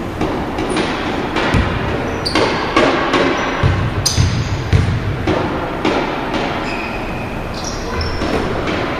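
Basketball thumping on a hardwood court in a large, echoing gym, with repeated sharp knocks and short high sneaker squeaks, loudest as players scramble for a rebound near the end.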